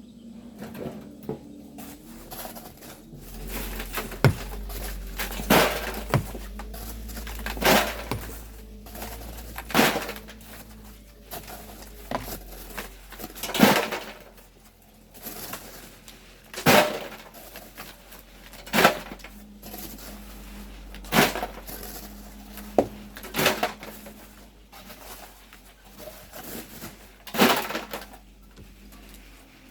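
Hand tools striking volcanic sand and rock, one sharp strike roughly every two seconds.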